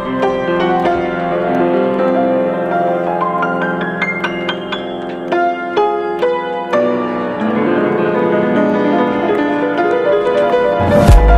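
Background music: a gentle piano melody with chords. Near the end it gives way to a louder track with heavy bass and sharp beats.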